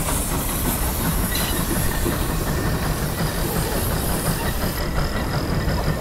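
Case 150 steam traction engine running under load, its exhaust chuffing in a steady rhythm from the stack. A high steam hiss runs with it and drops away about five seconds in.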